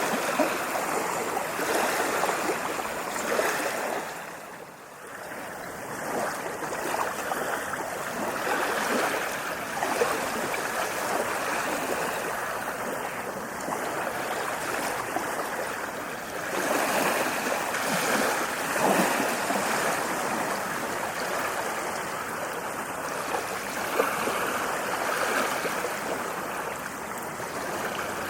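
Ocean surf washing in continuously, a steady hiss of breaking and receding water that dips briefly about four seconds in before the waves build again.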